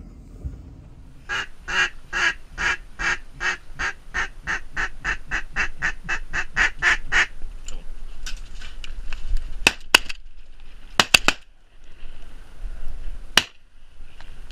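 Duck quacking: a run of about twenty quacks that speed up as they go. A few sharp cracks follow later.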